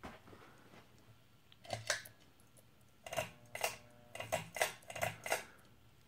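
Ceiling fan pull-chain switches clicking and the metal ball chains clinking, with a short ringing after each clink: two clicks about two seconds in, then a quick run of about eight clinks.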